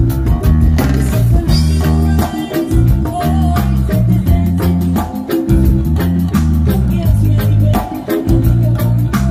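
Live band playing through a stage PA: a heavy bass line, electric guitar and a steady beat of drum hits.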